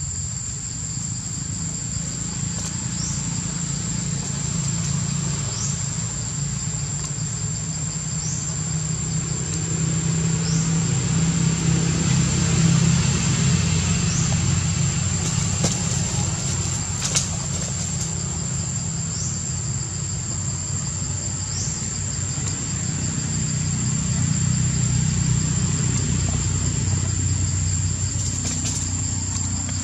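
Steady low rumble of an engine running, swelling about halfway through and again near the end, over a constant high-pitched insect drone with a short rising chirp repeating about every two and a half seconds.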